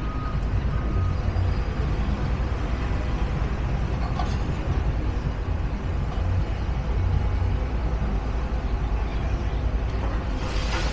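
Steady low engine rumble with street noise.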